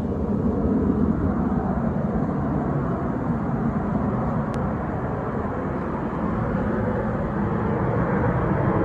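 Distant F-35 fighter jets' engine noise: a steady rumble that turns a little brighter near the end.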